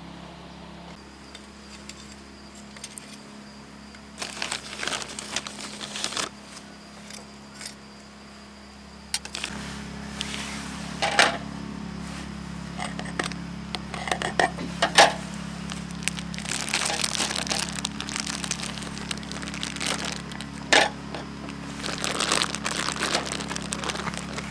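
Objects being handled at close range: irregular crinkling and rustling with sharp clicks and knocks, over a steady low hum that grows louder about nine seconds in.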